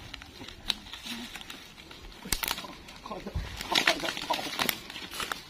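Footsteps crunching on dry leaves and snapping twigs, with irregular crackles that come in clusters a couple of seconds in and again near the end.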